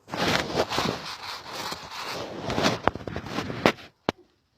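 Close rustling and scraping with a few sharp clicks, stopping abruptly near the end.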